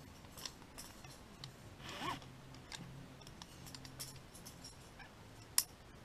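Faint, scattered metallic clinks of climbing carabiners and quickdraw hardware, with one sharp, louder click about five and a half seconds in.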